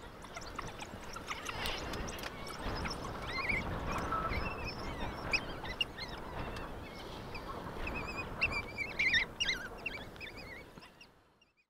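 African wild dogs twittering and squeaking: many short, high-pitched, bird-like calls over a noisy background, coming thickest and loudest near the end.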